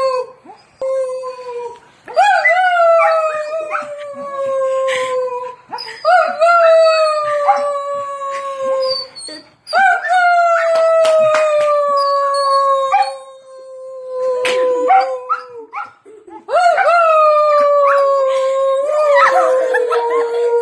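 A dog howling, or "singing", in four long drawn-out howls. Each howl starts with a short rise in pitch, then slides slowly downward for three to four seconds.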